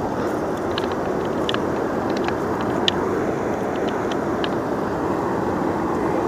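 Steady rush of river water pouring through rapids, with a few faint light clicks scattered over it.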